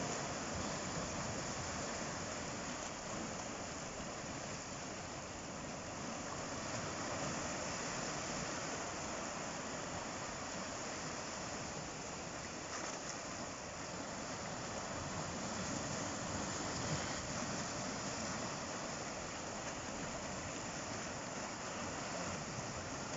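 Sea surf washing steadily on the shore, a continuous wash of waves that swells and eases gently in loudness.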